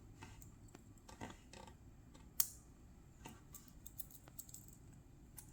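Faint small clicks and taps from a 58mm Swiss Army knife being handled, its tools clicking on the backspring as they are worked, with one sharper click about two and a half seconds in.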